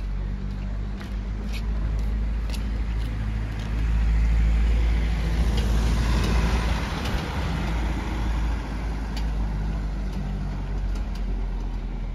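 A car drives slowly past close by, its engine and tyre noise swelling to a peak about halfway through and then fading, over a steady low engine hum. A few light ticks are scattered through it.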